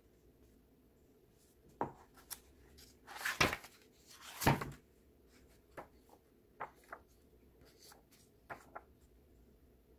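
Paper pages of a paperback book being turned by hand. There are two louder page-turning swishes around the middle, with lighter paper rustles and taps of fingers on the pages before and after.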